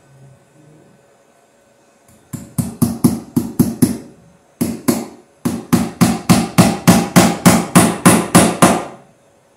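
A wooden-handled hammer striking rapidly up into a wooden ceiling joist, about five blows a second. It starts about two seconds in, pauses briefly twice, then runs in a longer burst that stops about a second before the end.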